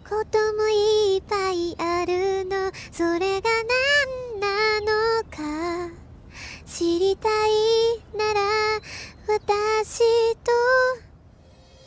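A woman singing a Japanese pop song in a fairly high register, in short phrases, her voice nearly alone with little heard behind it. The singing stops about eleven seconds in.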